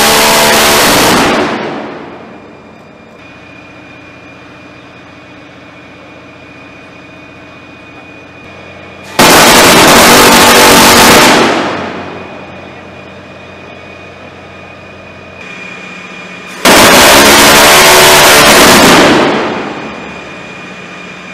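Phalanx CIWS 20 mm six-barrel Gatling gun firing long sustained bursts, each a continuous ripping stream of rounds lasting about two seconds before trailing off in a rolling echo: one burst ends about a second in, another comes around nine seconds in and a third around seventeen seconds in. Between the bursts a steady hum with a faint high whistle.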